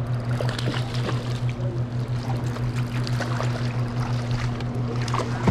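A boat's outboard motor hums steadily while a hooked catfish splashes at the surface beside the boat over rushing water.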